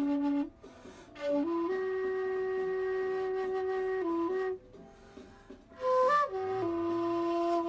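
Background music of a solo flute playing a slow melody of long, held notes, broken by two short pauses.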